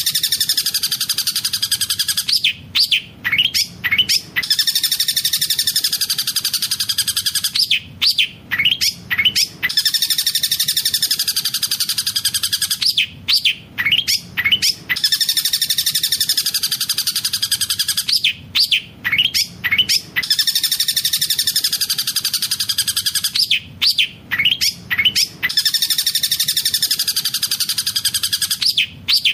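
Long-tailed shrike (cendet) singing a fast rolling trill mixed with mimicked collared kingfisher (tengkek buto) calls. Stretches of high, dense trilling alternate with bursts of short sharp notes, the same phrase repeating about every five and a half seconds as a loop.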